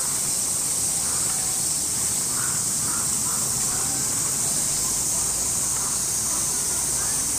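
Steady, high-pitched chorus of summer cicadas, with faint crow caws in the distance.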